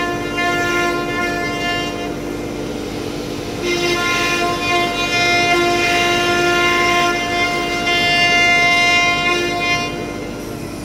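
Twin 9 kW automatic-tool-change spindles of a CNC router running and carving a board: a steady high whine with several overtones. It grows louder and rougher from about four seconds in and eases off just before the end.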